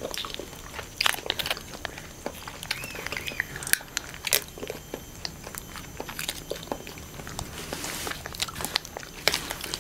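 Close-miked eating of konjac jelly: short wet clicks, slurps and chews scattered irregularly as the jelly is sucked from squeeze pouches, with plastic jelly packets crinkling now and then.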